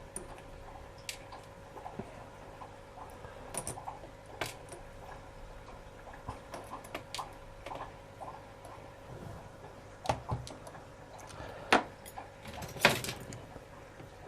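Scattered small metallic clicks and taps of lock pins, springs and tools being handled as the pin stacks are taken out of a disassembled thumb-turn lock cylinder, with two louder knocks near the end.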